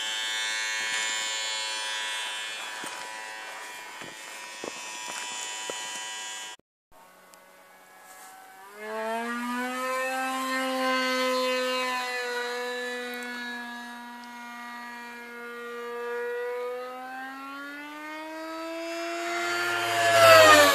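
RC model P-51 Mustang's motor and propeller. It gives a steady high whine at first. After a short break it is heard in flight, its pitch slowly rising and falling as the plane moves about, and it grows loudest near the end as it passes close, the pitch dropping as it goes by.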